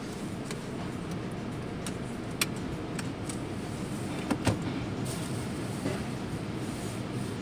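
Steady low mechanical rumble heard from inside a car's cabin at the entrance of an automatic car wash, with a scattering of short sharp clicks and knocks; the loudest pair comes about four and a half seconds in.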